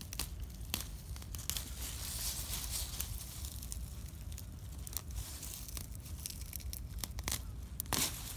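Several bur cucumber stems gripped together at the base and pulled from the soil: stems and leaves rustling and crackling under the hand, with a louder burst of tearing near the end as the clump comes free.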